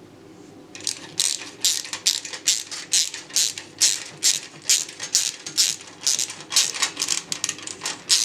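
Ratcheting screwdriver clicking as a screw is driven into the computer case: sharp regular clicks about two and a half a second, starting about a second in.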